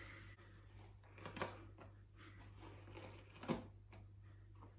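Faint rustling of hair and clothing being handled, with a few soft clicks, the sharpest about three and a half seconds in.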